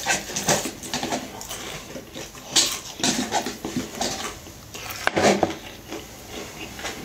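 Eating noises: a utensil scraping and clicking in an instant-noodle cup, with chewing, and two louder clatters about two and a half and five seconds in.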